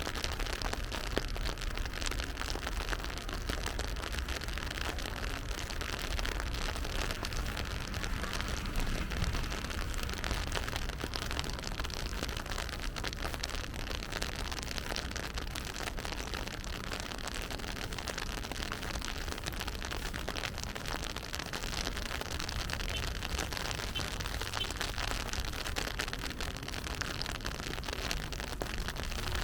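Steady rain falling on the street, a fine pattering hiss, over a low steady rumble of city traffic.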